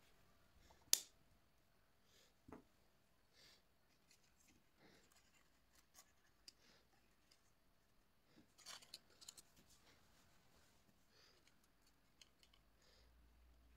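Faint handling of cardstock and wooden clothespins: scattered soft clicks and paper rustles, with a sharp click about a second in and a small cluster of clicks around eight to nine seconds in.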